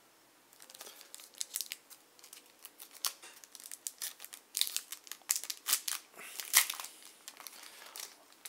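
Plastic wrapping on a pack of oversized game cards crinkling and tearing as it is pulled open by hand. The crackles are quick and irregular, start about half a second in and are loudest around the middle.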